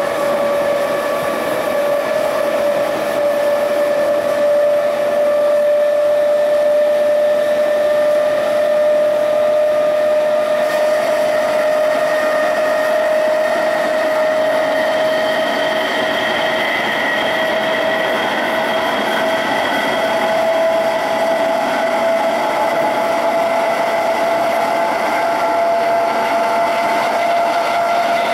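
Brush TM2141C traction motors of a Class 321 electric multiple unit whining under power, heard from inside the carriage. The whine rises slowly and steadily in pitch as the train gathers speed.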